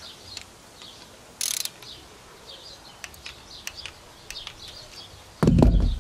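Click-type torque wrench ratcheting and clicking as it rechecks the Ecotec timing chain guide bolts at 89 inch-pounds, with light scattered clicks and a short sharp rasp about a second and a half in. A loud low thump near the end.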